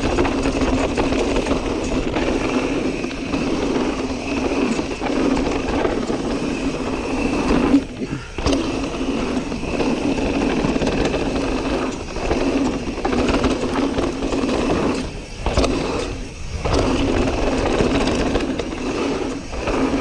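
Mountain bike riding down a dirt trail: tyres rolling over dirt and rock, the bike rattling, and wind rushing over the microphone, with a few brief dips in the noise.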